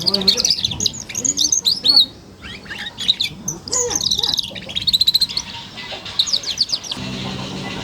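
A young domestic canary, about four months old, sings its twittering juvenile song ('ngeriwik'): rapid high chirps and short trills strung together, broken by a couple of brief pauses.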